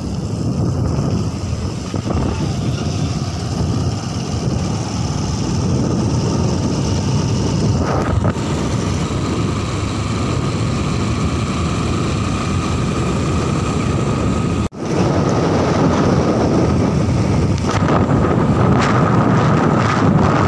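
Wind rushing over the microphone of a moving motorcycle, with the engine running under it. The sound cuts out for an instant about two-thirds of the way through.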